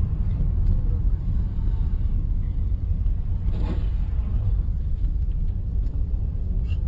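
Steady low rumble of a car driving, with a faint steady high-pitched whine over it and a brief faint swish a little past halfway.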